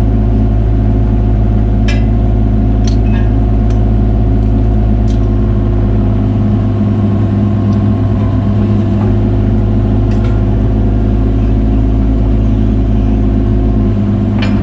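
Caterpillar 303 mini excavator's diesel engine running steadily, with a few sharp metallic knocks in the first few seconds.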